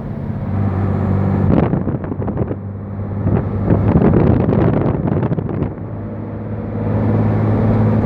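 Turbocharged diesel engine of a Mercedes-Benz 1319 truck running steadily under way. From about a second and a half in to about six seconds, loud irregular rushing and rattling noise mostly covers it, and then the steady engine note comes back.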